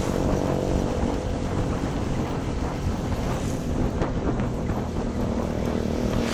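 Honda Click 125i scooter's single-cylinder engine running steadily under way, with wind buffeting the microphone.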